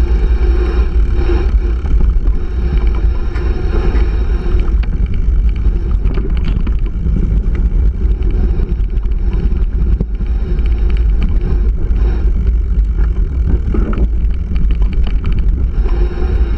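Mountain bike ridden over a dirt and gravel trail: wind buffets the microphone with a steady low rumble, while the tyres crunch over the ground and the bike clicks and rattles on the bumps.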